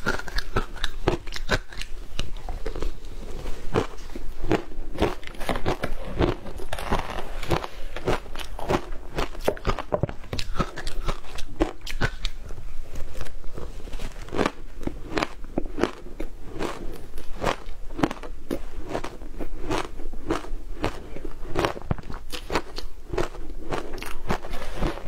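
A person biting and chewing mouthfuls of frozen matcha ice: crisp crunches coming several times a second, one after another without a break.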